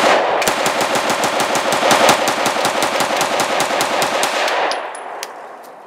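Sig Sauer MPX Copperhead 9mm firing a long, fast string of shots, about seven a second, that slows to a few last shots near the end.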